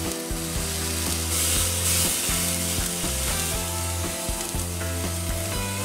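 Sirloin steak sizzling steadily on a hot grill grate as it sears, over background music.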